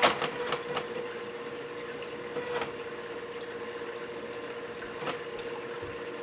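Home-built automatic alkalinity tester, built from an HP DeskJet printer, running with a steady hum, with a quick run of clicks at the start and single clicks about two and a half and five seconds in.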